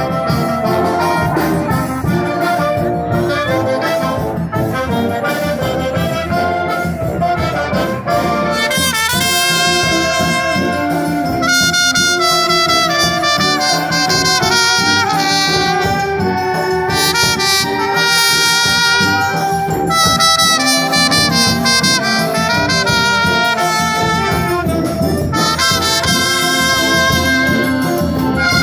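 Brazilian filarmônica wind band playing an arranged popular song, with trumpets, trombones and saxophones. The band grows fuller and louder about eight seconds in.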